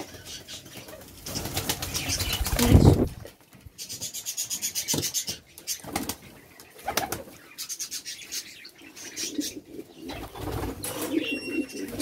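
Fancy pigeons flapping their wings in several quick bouts as a pair tussle and mount each other, with some low cooing near the end.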